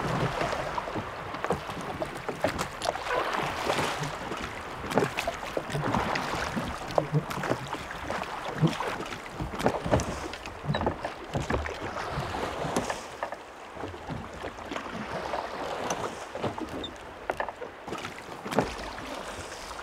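Wooden rowboat being rowed: oars knocking and creaking in their oarlocks and the blades splashing through choppy water, with irregular sharp knocks every second or two over a steady wash of wind and waves.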